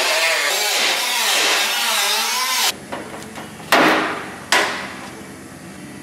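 Angle grinder with a cut-off wheel cutting through the thin sheet steel of a rusted car door, its pitch wavering as the wheel is loaded. It stops abruptly a little under halfway through, and then come two sharp knocks, each ringing briefly.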